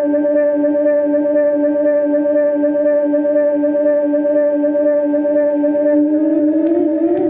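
Ambient electric guitar drone through delay and looper effects pedals: a held chord rings on steadily with a slight pulse. About six seconds in, a pedal knob is turned and the sound breaks into repeated upward-sliding pitch sweeps.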